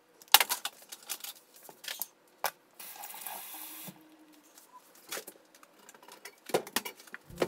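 A spoon clicking and scraping against an avocado pit as it is pried out until the pit flies off. There is a run of sharp clicks and knocks, the loudest just after the start, a short hiss in the middle, and more knocks near the end.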